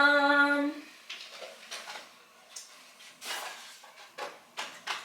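A brief steady pitched tone lasting under a second, then a series of light clicks and knocks of household things being handled, drawers and doors opening and closing.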